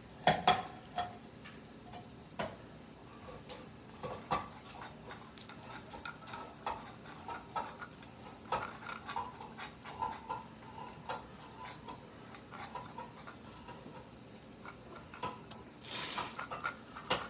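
A crowd of cats eating wet food from bowls and cans on a tile floor: soft, irregular chewing and lapping clicks, with bowls and cans knocked now and then. There is a sharper clatter right at the start and a short, louder scraping rustle near the end.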